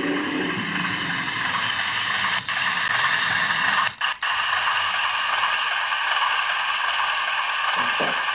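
OO gauge model Class 03 diesel shunter running along the track, its small electric motor and gears giving a steady whirr. The sound drops out briefly about four seconds in.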